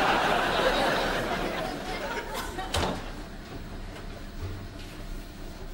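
Studio audience laughing, fading away over the first second or two, followed by a single knock near the middle.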